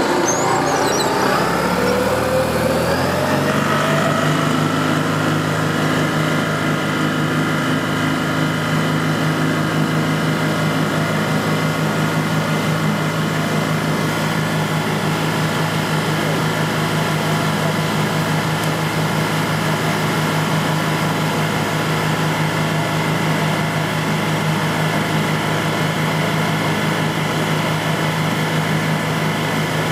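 Boat outboard motor speeding up, its pitch rising over the first few seconds, then running steadily at full speed.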